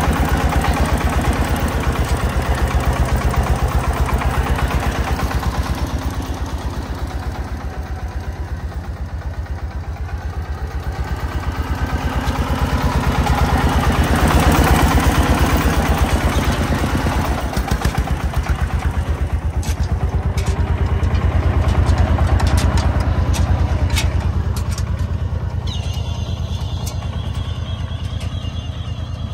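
Homemade công nông truck's diesel engine chugging under load while hauling about four cubic metres of sand, with rapid, even firing beats. It swells louder a couple of times and eases off near the end as the truck pulls away ahead. A few sharp ticks come in the second half.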